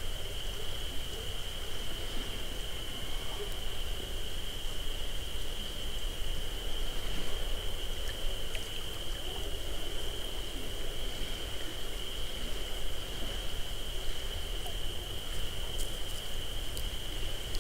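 Crickets trilling in one steady, unbroken high-pitched note over the low rumble and hiss of a parabolic-dish microphone, with a few faint clicks near the end.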